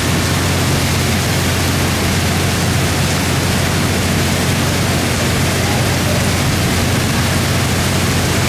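Heavy rain pouring down, a loud, dense, steady hiss, with a steady low hum underneath from the standing 115-series electric train.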